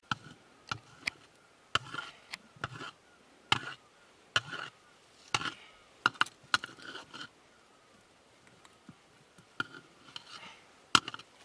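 A metal ladle stirring thick food in a small cooking pot, knocking and scraping against the pot. The sharp knocks come irregularly, about one a second, with a pause of about two seconds past the middle.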